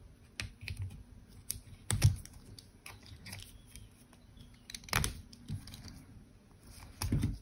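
Handling of a smartwatch strap and its buckle as it is undone: scattered small clicks and taps, the sharpest about two seconds in, about five seconds in, and a short cluster near the end.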